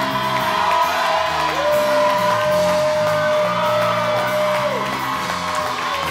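Live gospel praise music: long held high notes that slide in and out over a moving bass line, with whoops from the congregation.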